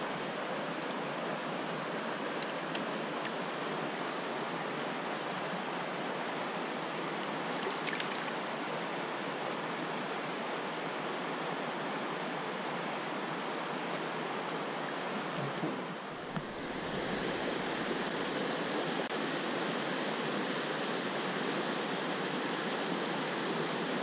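Mountain stream rushing over rocks: a steady wash of running water. About two-thirds through it dips briefly, then comes back fuller, with a deeper rumble.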